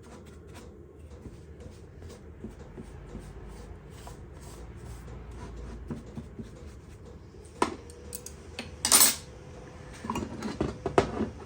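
Metal parts and tools being handled on a workbench: faint scattered ticks, then sharper metal clanks in the second half, the loudest about nine seconds in, followed by a quick run of clinks near the end.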